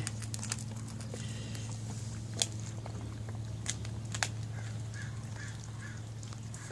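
Labradoodle puppies eating and lapping at a stainless steel bowl, with small wet mouth sounds and a few sharp clicks against the metal. A steady low hum runs underneath.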